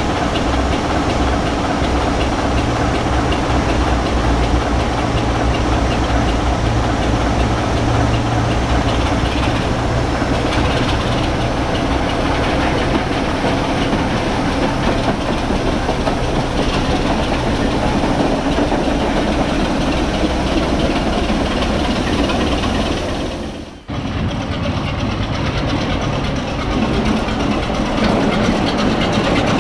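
British Rail Class 25 diesel locomotive D7541 idling, its Sulzer six-cylinder engine running with a steady low hum. The sound cuts off suddenly about 24 seconds in, and another diesel locomotive engine running follows.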